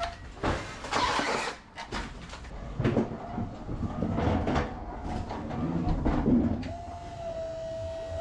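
Electric pallet truck moving loaded pallets across the truck's floor and tail lift, with irregular knocks and rattles as it goes over the deck. A steady motor whine starts near the end.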